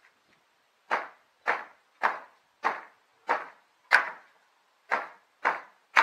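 Hammer striking old wooden roof boards: nine sharp blows at about two a second, starting about a second in.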